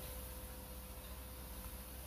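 Steady background noise: a low hum and faint hiss with a constant mid-pitched tone, and no distinct cooking sound.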